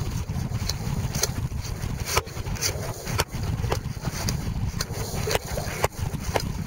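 Wind buffeting the microphone on a sailing sea kayak in choppy water, a steady low rumble. About ten irregular sharp ticks and slaps, roughly one every half second, come from water and spray striking the hull and rigging.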